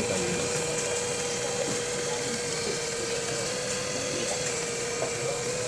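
Sharp COCOROBO robot vacuum cleaner running: a steady whir from its suction motor and brushes, with a steady mid-pitched whine.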